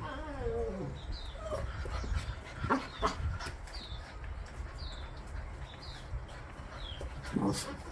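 Bernese Mountain Dog puppy whining, the first whine sliding down in pitch, with a few short sharp sounds about three seconds in and a louder short puppy yelp near the end. Birds chirp high and briefly about once a second in the background.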